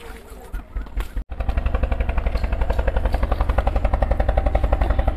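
An engine running steadily with a rapid, even chugging pulse, starting about a second in after a brief break in the sound.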